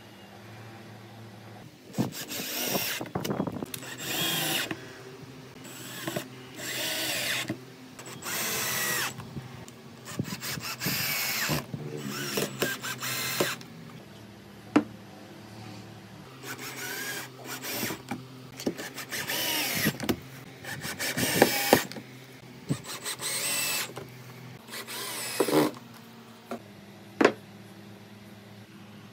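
Cordless drill-driver driving screws into hinge plates, in about a dozen short bursts, its motor whine rising and falling with the trigger and the load. A few sharp knocks fall between the bursts.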